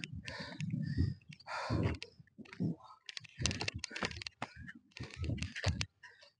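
A man panting heavily from the effort of climbing a steep hill, with a run of sharp, irregular clicks from about three seconds in.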